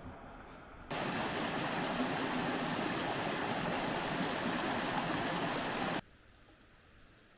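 Water rushing steadily down a small stream channel. It starts suddenly about a second in and cuts off abruptly about six seconds in, leaving only a faint, quiet background.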